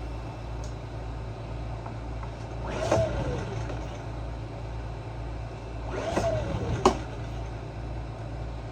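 Generac GP2200i generator being pull-started on its recoil rope, twice: each pull is a quick cranking whir that falls in pitch as the engine spins down without catching. The second pull ends in a sharp click. The hard starting is a fault the owner traces to the carburetor, since it will not start without carb spray. A steady low hum runs underneath.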